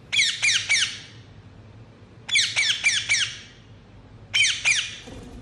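Indian ringneck parakeet calling in three bursts of sharp, rapid squawks, each note sliding quickly down in pitch: three notes, then four, then two.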